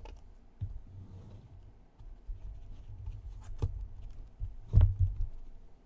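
Handling noise on a desk: low shuffling and rubbing with a few sharp knocks, the loudest near five seconds in.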